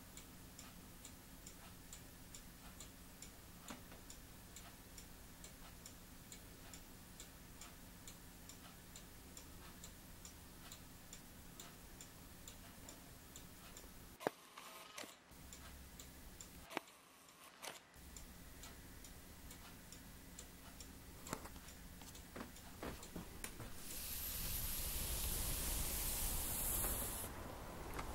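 Faint, steady ticking, about two ticks a second, with a few louder clicks. Near the end a louder rushing hiss lasts about three seconds.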